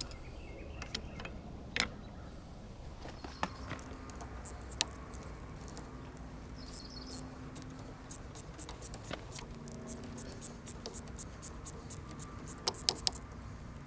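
Irregular small metallic clicks, clinks and scrapes of hand tools and cable hardware as corroded battery cable ends are worked off a tractor's battery cables. A few sharper clicks stand out, with a brief metallic ring midway.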